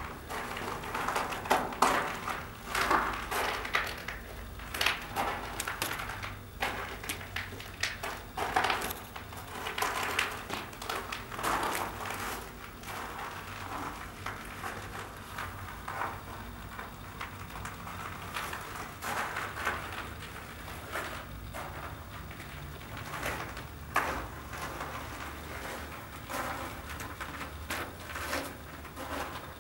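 Irregular knocks and taps ringing in a small room, denser and louder in the first half, over a low steady hum.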